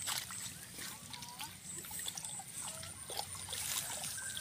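Hands groping and sloshing in shallow muddy water while feeling for fish, with irregular small splashes and trickles.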